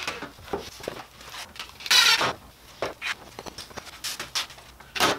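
Workshop handling noises: a series of short knocks and clicks as tools and parts are handled and set down on a wooden workbench, with one louder rustling burst about two seconds in.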